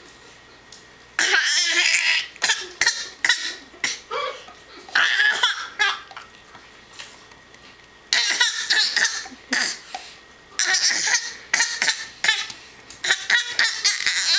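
A toddler making a string of raspy, giggling squeals, in short bursts with a pause in the middle.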